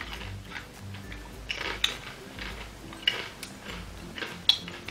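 Crunchy salty potato-ring snacks being bitten and chewed, with three sharp crunches among softer chewing noises.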